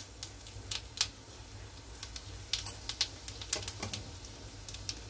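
Cumin seeds crackling in hot oil in a kadhai as a tadka is tempered: irregular sharp pops and ticks, a few a second, over a low steady hum.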